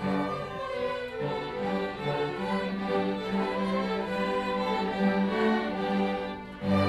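Youth symphony orchestra of violins, cellos and flutes starting a piece, all entering together after a pause. Near the end the sound drops briefly, then the full orchestra comes back in.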